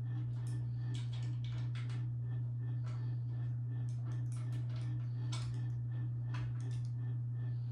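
Irregular light clicks and taps of screws and small parts being handled on a PC case, over a steady low electrical hum.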